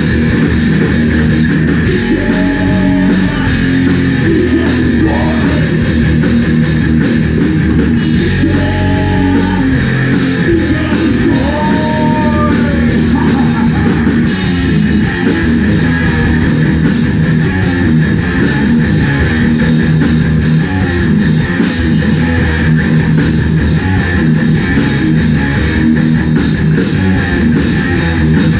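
Live heavy metal band playing: distorted electric guitars, bass guitar and drum kit, loud and steady throughout.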